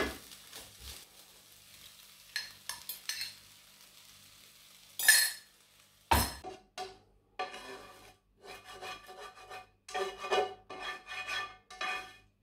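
Plastic spatula stirring ham and vegetables in a non-stick frying pan with a faint sizzle, then two loud knocks about five and six seconds in. After that comes a run of short, repeated scraping strokes of the spatula against the pan as the food is scraped out onto a plate, the pan ringing faintly.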